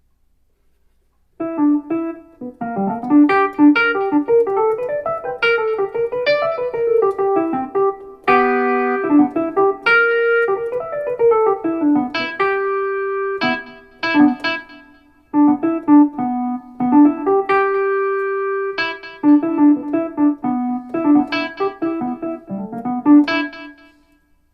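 Wurlitzer-style electric piano patch on a Roland RD-08 digital stage piano, played in phrases of chords over a moving low line. The patch has its bass and highs boosted by EQ and an effect switched on. Playing starts about a second and a half in, with a few short pauses.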